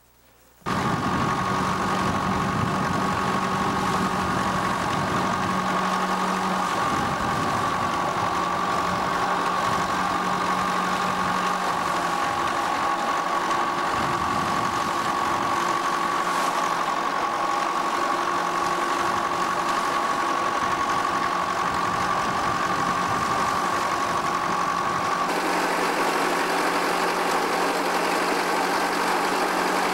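Garvie threshing mill working through sheaves, running steadily together with the engine that drives it, with a steady high hum over the machine noise. The sound starts abruptly just under a second in, and the high hum drops out about 25 seconds in.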